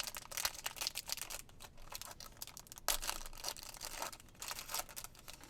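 Wrapper of a 2020 Select football card pack crinkling and tearing as it is ripped open by hand: a dense run of sharp crackles and rips, loudest about three seconds in.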